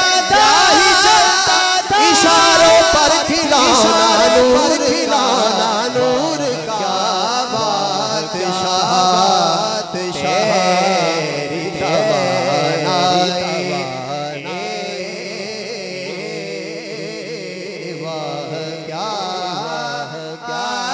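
A man singing a naat (Urdu devotional poem) through a microphone and PA, in long, ornamented held notes that waver up and down; the singing is louder for the first six seconds or so.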